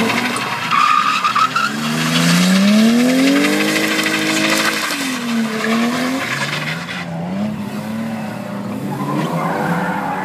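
BMW E30 drifting: the engine is held at high revs, its note rising, holding and dipping with the throttle, while the rear tyres squeal and skid on the tarmac. The tyre squeal is loudest over the first seven seconds, then eases as the engine note drops and climbs again.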